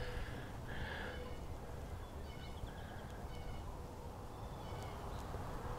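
Faint outdoor ambience: distant birds giving short chirps every second or so over a low steady rumble.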